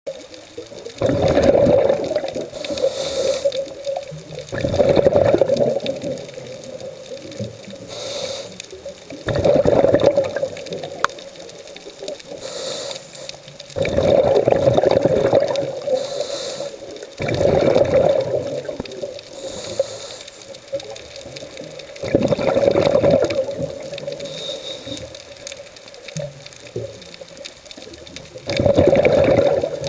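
Scuba breathing through a regulator underwater: seven loud bursts of exhaled bubbles, about one every four to five seconds, with a short high hiss of inhaling between them.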